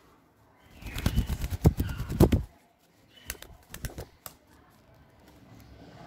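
A cockatiel flapping its wings hard while held in the hand, struggling against the handling: a rapid flurry lasting about a second and a half, then a few scattered flaps and scuffs.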